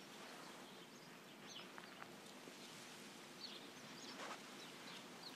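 Near silence: a faint steady background with a few small bird chirps scattered through it.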